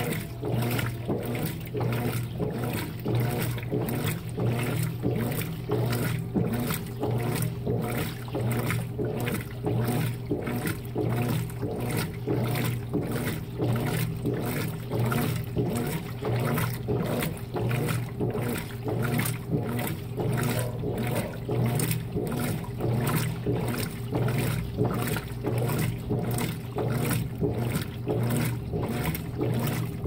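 Consul 16 kg top-load washing machine agitating a load of cloths in soapy water: rhythmic sloshing and churning, about two strokes a second, over a steady low motor hum.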